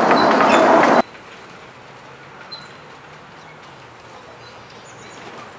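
Miniature ride-on park train: about a second of loud noise aboard, which cuts off suddenly, then the faint low hum and rumble of the small train running along its narrow track.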